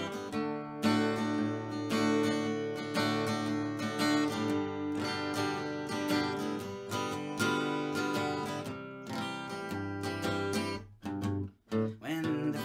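Acoustic guitar strummed in a steady rhythm, playing a chord intro. The strumming breaks off briefly near the end.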